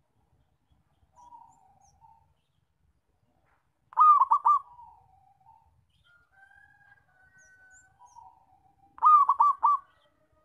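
Zebra dove (perkutut) cooing: two loud phrases of quick, clipped coos, the second about five seconds after the first, with softer, lower coos in between.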